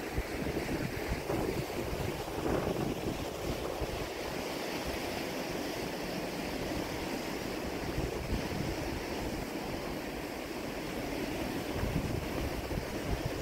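Wind buffeting the microphone in uneven gusts over a steady wash of sea waves.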